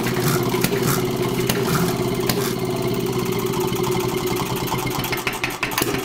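An engine idling at a steady, even speed, with a fast clatter of small clicks over its note, dropping away near the end.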